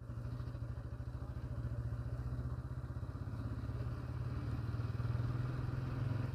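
Motorcycle engine running steadily while riding, heard from the rider's seat: a low, even drone with a fast pulse.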